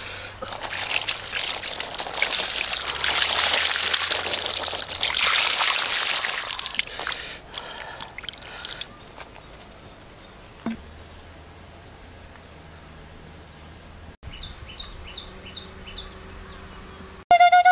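Water poured from a bamboo tube splashing onto food on a banana leaf for about seven seconds. Then quieter, with a few faint high chirps, and a short loud high call right at the end.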